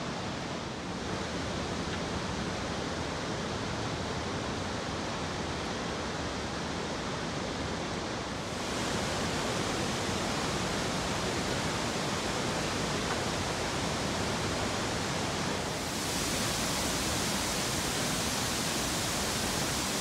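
Large waterfalls of Iguazú Falls, a steady rushing of heavy falling water. It steps up abruptly about eight seconds in and again about sixteen seconds in, each time louder and hissier as closer falls are heard.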